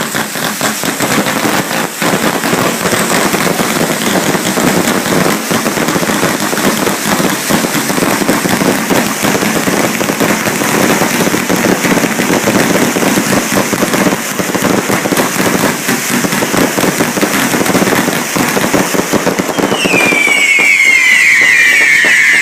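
Fireworks going off at close range: a dense, continuous crackle of rapid pops and bangs. About twenty seconds in, many shrill whistling shells join, each whistle falling in pitch.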